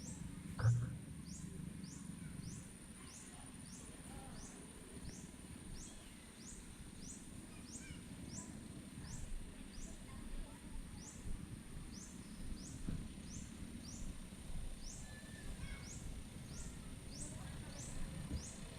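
Outdoor ambience of insects: a steady high drone and a short high chirp repeating about one and a half times a second, over a low rumble. A single dull thump about a second in.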